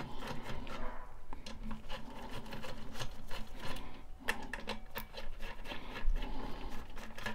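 A 5 mm hex tool loosening the cap-head screws on an oil-free compressor's cylinder head. It makes a run of quick small metal clicks with rubbing, broken by a couple of short pauses.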